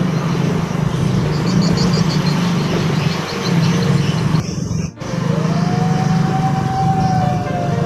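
Small motorcycle engines running steadily while ridden slowly in a group. About five seconds in the sound briefly cuts out, and a long, steady tone follows over the engines.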